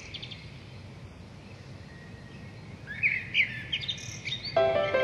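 Birds chirping in short, quick calls: a few at the start and a livelier run around three to four seconds in, over a low steady background noise. Music comes in near the end.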